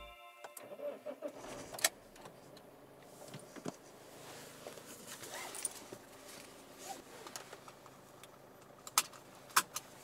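Handling noise inside a parked car: scattered rustling, light knocks and clicks, with two sharp clicks near the end, over a faint low hum.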